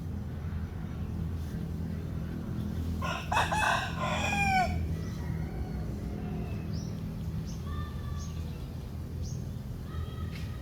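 Rooster crowing once, a loud call of about a second and a half starting about three seconds in, followed by a few short, faint high calls over a steady low hum.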